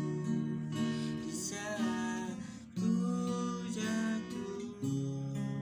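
Acoustic guitar strumming chords as an instrumental passage of a slow pop ballad, the chord changing every second or two.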